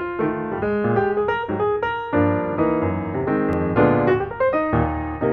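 Background piano music, a steady run of notes with low chords beneath.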